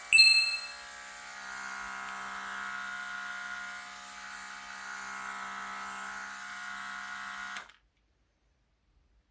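Portable air-compressor mist sprayer running: a small compressor motor whining steadily under a hiss of spray. It starts with a brief louder burst and cuts off suddenly about seven and a half seconds in.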